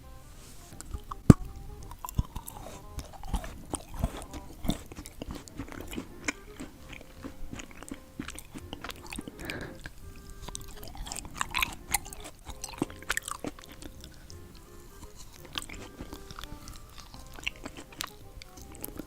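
Close-miked mukbang eating: biting and crunchy chewing, with many sharp clicks and crackles, the loudest about a second in. Quiet background music plays underneath.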